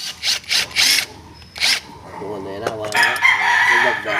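A few short hissing bursts, then a rooster crowing from about halfway in, one long wavering call.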